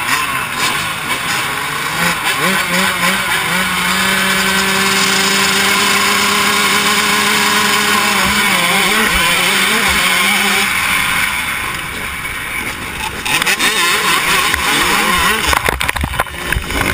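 Motocross bikes revving on the starting line, one engine holding a steady note, then the pack accelerating off the gate. Near the end come a rapid run of knocks and clatter as the bike crashes in the start.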